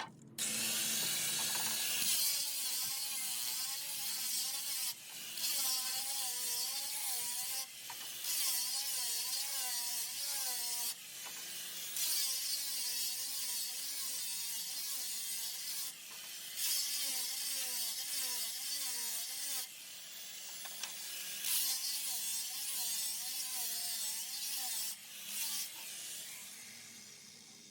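Power tool working palm wood in repeated passes of a few seconds each, with a steady hiss and a wavering motor pitch as it bites into the wood.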